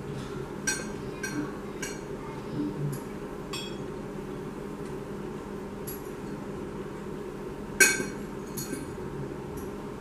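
Small hard objects clinking and knocking as they are handled on a tabletop, a scatter of light clinks with one louder clink about eight seconds in, over a steady low hum.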